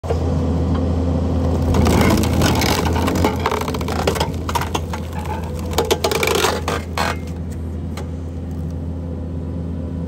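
A large wood round cracking and splintering as the Hammerhead Big Block hydraulic log splitter forces it through the wedge, a dense run of cracks from about two to seven seconds in. Under it the carrying machine's engine runs with a steady hum.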